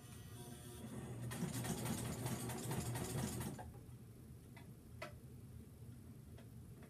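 Home sewing machine running in a fast burst of stitching that builds up about a second in and stops after a few seconds. A few light clicks follow.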